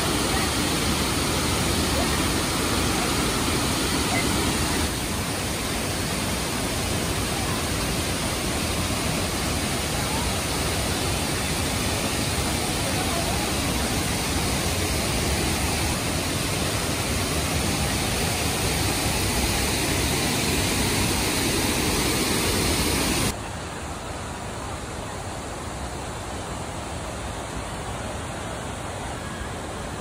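Steady rush of water falling at the Krang Shuri waterfall. Near the end it drops suddenly to a quieter, duller rush of flowing water.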